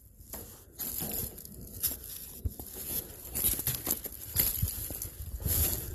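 Footsteps crunching on railroad ballast gravel, uneven steps with rustling in between.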